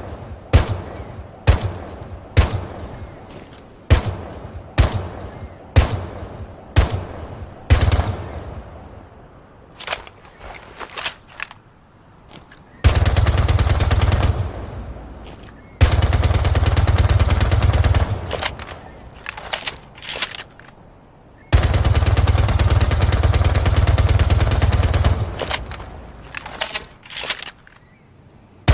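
A 9mm C1 submachine gun firing: first a string of single shots about half a second to a second apart, then three long bursts of fully automatic fire, the last the longest, and a few more single shots near the end.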